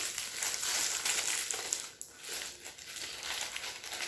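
Crinkly wrapping paper of a toy's surprise packets being torn open and crumpled by hand, with a brief pause about two seconds in.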